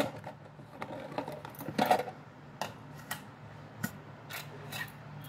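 Bangles being handled and taken out of their set, clicking and clinking against each other at irregular moments, over a low steady hum.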